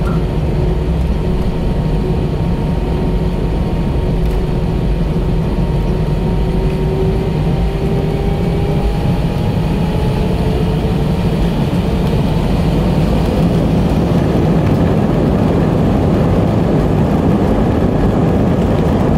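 Airbus A320 cabin noise while taxiing: the engines give a steady rumble and hum, and a faint whine rises slowly in pitch over the first ten seconds or so. The noise grows slightly louder toward the end.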